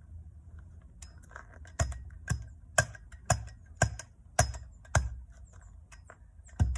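Hand tamper packing QPR cold-patch asphalt into a pothole: regular thuds about two a second, starting about two seconds in, with a short break before another strike near the end.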